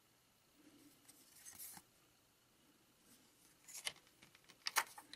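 Faint handling of a 1982 Donruss baseball card: a soft papery slide about a second and a half in, then a few short crisp clicks near the end as a card is laid down on the stack and the next one is picked up.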